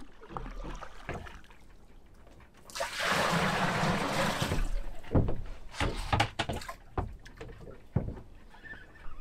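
Bucket of seawater being filled over the side of a small boat: water splashes and pours for about two seconds, then several sharp knocks follow.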